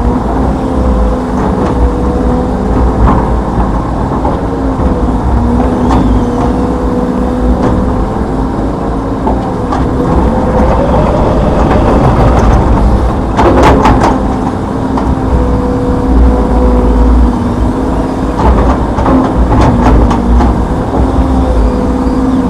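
Hitachi Zaxis 210F excavator's diesel engine running steadily under working load, with a whine that shifts slightly in pitch. A quick cluster of metallic clanks comes a little past the middle.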